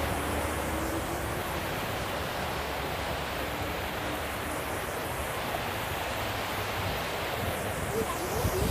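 Steady wash of traffic driving through floodwater, tyres swishing through standing water over the low running of engines, with a slightly louder swell near the end as a vehicle passes closer.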